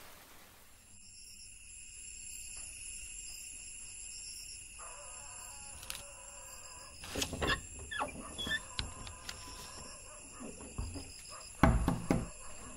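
Quiet night ambience of insects chirring at a steady high pitch, with a few soft knocks and thumps, the loudest near the end.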